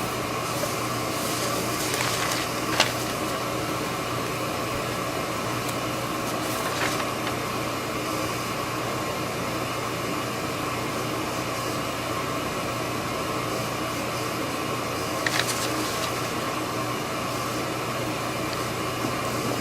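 Steady room tone: an even hiss with a low hum, broken by a few short clicks. The sharpest click comes about three seconds in, with others near seven and fifteen seconds.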